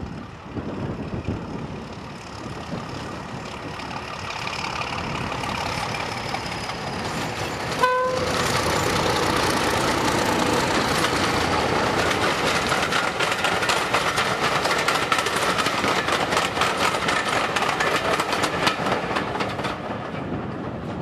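Class 31 diesel locomotive 31452, with its English Electric 12SVT engine, approaching and passing with a passenger train. It gives a brief horn toot about eight seconds in as it draws level. Then comes a loud run of rapid, regular clicking from the wheels over the rail joints and the engine's note as the locomotive and coaches go by, dropping away near the end.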